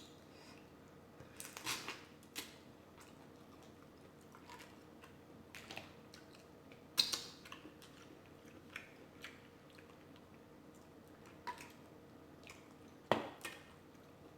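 Close-up mukbang eating sounds from a seafood boil: scattered short smacks, clicks and crackles from chewing and from handling the shellfish. The sharpest sounds come about 2, 7 and 13 seconds in.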